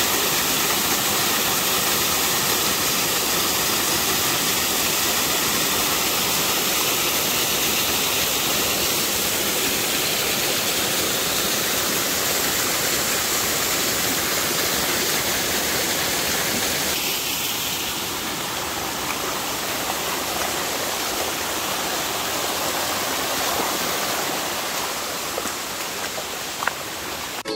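Water rushing steadily: a small waterfall spilling over rocks and a shallow stream running over stones, its tone shifting a little about two-thirds through.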